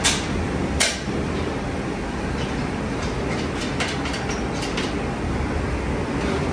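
Factory machinery running steadily with a low rumble. A sharp clack comes right at the start and another just under a second in, followed by fainter, irregular clicks and knocks.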